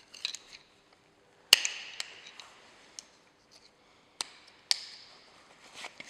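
Sharp metallic clicks and knocks from a screwdriver working the ball-joint latches of a Daewoo Lanos gearshift linkage rod on its shift mechanism. There are three main knocks, the loudest about a second and a half in and two more close together past four seconds, each with a brief metallic ring, among lighter clicks.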